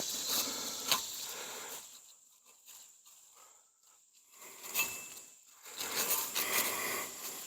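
Rustling and handling noise with a few sharp clicks, going quieter for about two seconds in the middle before the rustling picks up again.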